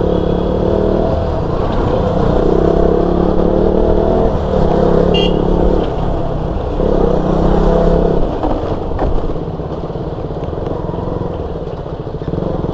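Motorcycle engine running under throttle in several steady pulls with short breaks between them, easing to a lower, quieter note after about eight seconds.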